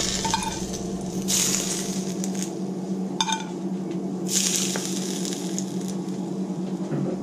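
Smoking-hot peanut oil spooned from a pan onto steamed tilapia and aromatics, sizzling in three short bursts of about a second each. A metal spoon clinks against the pan in between, and a steady hum runs underneath.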